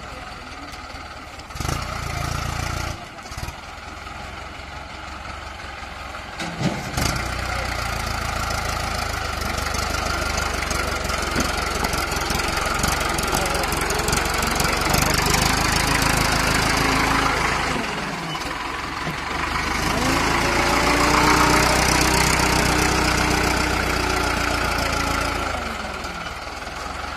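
Mahindra Arjun 555 DI tractor diesel engines running under heavy load as one tractor tows the other out of deep mud. The engines rev up about seven seconds in and labour, ease briefly past the middle, rev again and drop back near the end.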